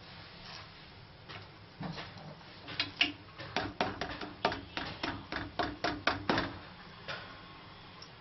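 A metal spatula blade knocks and taps against an iron tawa under a bakshalu flatbread. It makes a run of sharp clicks that speeds up to about four a second in the middle and stops suddenly.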